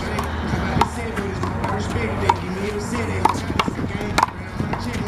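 Big blue handball rally: the ball slapped by hand and hitting the wall, a series of sharp smacks at irregular intervals.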